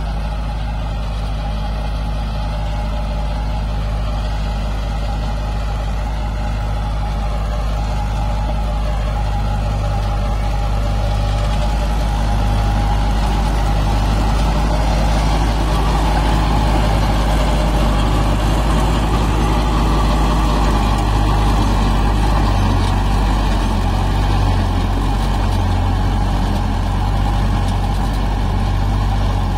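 Tractor engine running steadily under load while a PTO-driven Farmpower super seeder works the soil behind it. It grows louder from about twelve seconds in.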